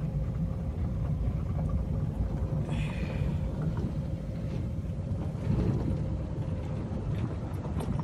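Steady low rumble of a moving vehicle travelling along a road, with a faint steady hum and a brief high squeak about three seconds in.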